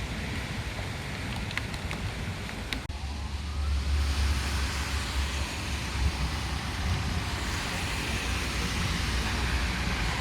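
Rain hiss on a flooded street, then, after a cut about three seconds in, the low rumble of traffic driving on the wet road over the rain.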